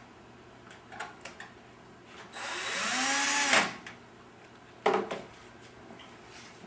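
Electric screwdriver driving a screw into the computer case to fix the optical drive in its bay. Its motor runs for about a second in the middle, pitch rising and then falling. A few light clicks come before it and a sharp knock follows.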